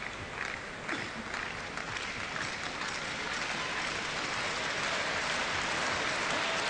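Crowd applauding, swelling steadily louder, with a few separate claps near the start.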